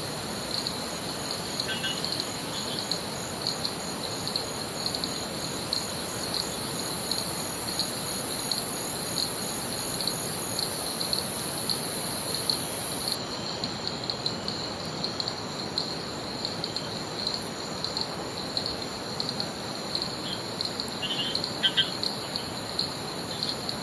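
Tropical insects chirping in a steady pulsing chorus over an even rushing hiss like flowing river water. A few short bird chirps come about two seconds in and again near the end. The background drops a little about thirteen seconds in.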